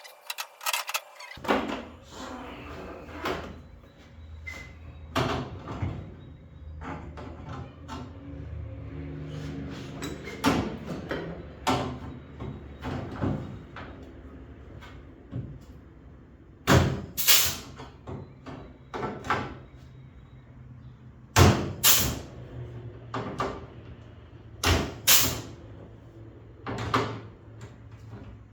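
Irregular knocks and clanks from bodywork on the car's T-top, some loud and in quick pairs, over a steady low hum.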